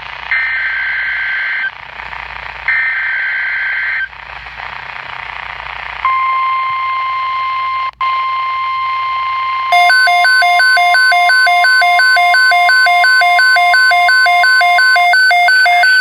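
NOAA Weather Radio Emergency Alert System tones: two screeching digital header bursts in the first four seconds, then after a short pause the steady single-pitch weather radio warning alarm tone. About ten seconds in, a louder alarm that alternates between two pitches joins it. The steady tone stops shortly before the end while the two-pitch alarm keeps sounding.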